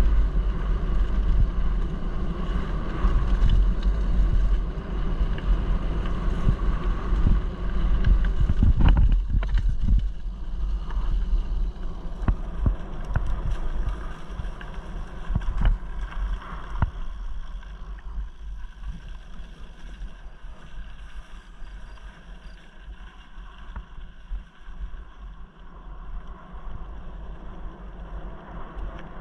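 Mountain bike riding downhill on a rough dirt track: wind buffeting the microphone over a low rumble of the tyres, with occasional knocks and rattles from bumps. The noise gets quieter about halfway through.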